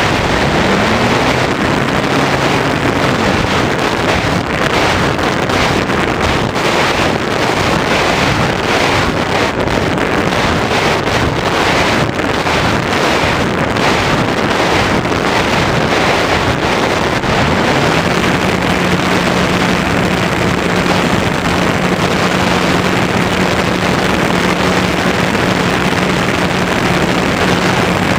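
Loud, steady wind rush over the microphone of a camera riding on a flying electric RC motor glider, with the faint hum of its motor and propeller; the hum rises in pitch about a second in and holds a steady pitch from about eighteen seconds on.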